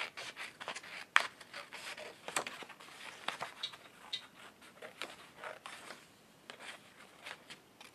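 Scissors cutting out a shape from a sheet of paper: irregular snips with paper rustling and scraping, the sharpest snip about a second in and fewer toward the end.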